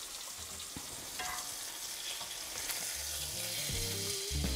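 Butter and oil sizzling in a skillet with garlic and herbs, with a few faint clicks of metal tongs in the pan. Background music with low bass notes comes in about three seconds in and grows louder near the end.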